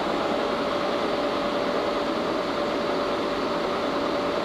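1952 Bullard Cutmaster vertical turret lathe running under power: a steady mechanical hum with one steady whining tone through it, unchanged throughout.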